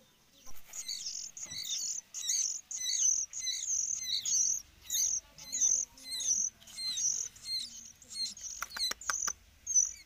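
Sooty-headed bulbul nestlings begging for food: a quick, insistent series of high chirps, about two a second, starting about half a second in.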